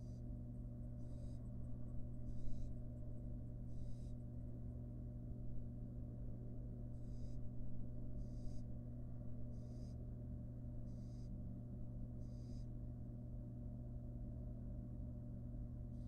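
Barn owl young giving short, hoarse hissing begging calls (the nestling 'snore'), repeated about once a second and falling silent for the last few seconds. A steady low hum runs underneath.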